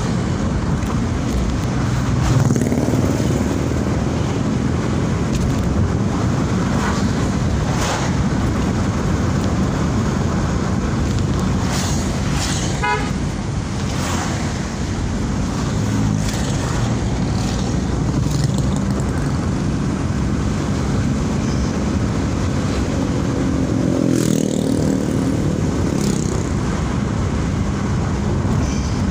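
Daihatsu Ayla's 1.0-litre three-cylinder engine and tyre noise, steady while driving, heard inside the cabin. A short horn toot comes about halfway through.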